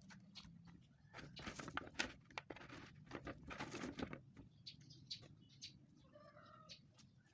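Lanzones fruit being peeled and eaten by hand: faint scattered clicks, with two short stretches of crackling about a second in and again about three seconds in.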